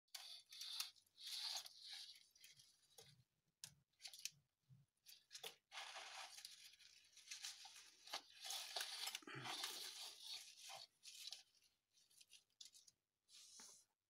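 Fresh leafy greens and grass rustling and crinkling as they are handled and set into a feeding dish, in irregular bursts with a few soft bumps.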